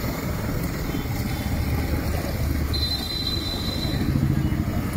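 Steady outdoor street noise with a low traffic rumble, and a brief high tone about three seconds in.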